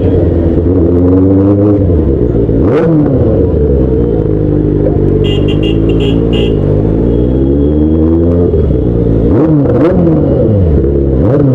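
Benelli 600i inline-four motorcycle engine being ridden, its revs rising and falling over and over with throttle and gear changes. A quick run of short high beeps, likely a horn, sounds about halfway through.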